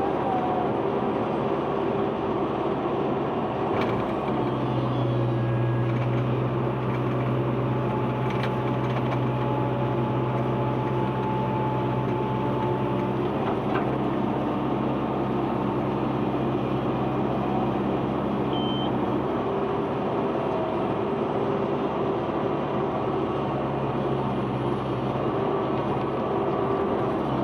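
Heavy diesel engine of an excavator running steadily. Its low note grows stronger about four seconds in and eases back about halfway through.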